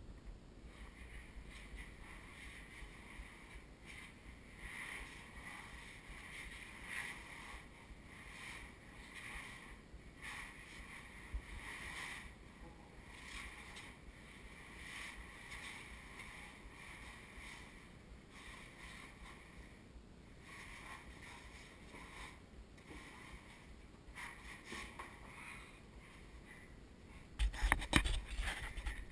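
Faint wind noise and rustling on a small action camera's microphone, with a steady low rumble. Louder bumps and rumble near the end, typical of the camera being handled or knocked.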